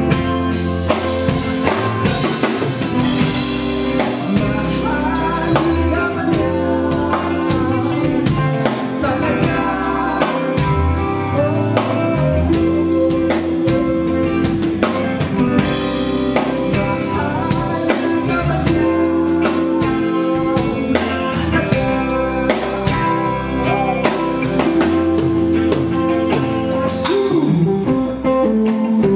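A live rock band playing: a drum kit keeping a steady beat under electric guitar and bass, with a singer's voice in stretches.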